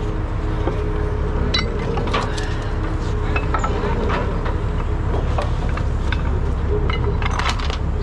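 Scattered metal clinks of tow chains, hooks and wire rope being handled on a heavy wrecker's rear deck, over the steady low rumble of the truck's diesel engine running.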